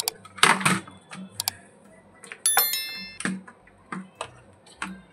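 Subscribe-button animation sound effect: a few mouse-like clicks, then a bright bell chime with several ringing tones about two and a half seconds in. Scattered clicks and knocks of hands handling a circuit board run alongside.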